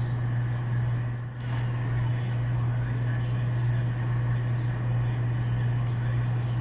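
A steady low hum with a haze of noise, with a brief dip about a second in.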